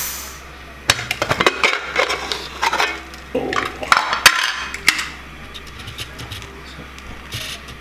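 Metal clicks and clatter of a pressure cooker being opened, its whistle weight and aluminium lid knocking against the pot, in a run of sharp knocks through the first five seconds.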